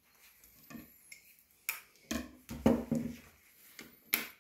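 Handling clatter as a Tormek metal knife jig is taken off a dagger's blade and things are set down on a wooden tabletop: a few separate knocks and clicks, the heaviest about two to three seconds in, with a sharp click near the end.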